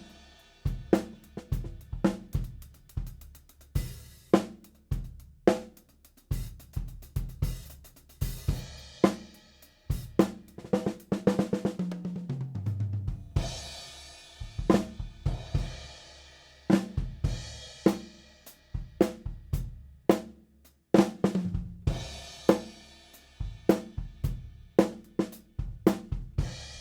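Tama Superstar Classic drum kit with Zildjian and Sabian cymbals, played in a steady groove on kick, snare and hi-hat with cymbal crashes. About halfway through, a tom fill falls in pitch, and a crash rings out at the end.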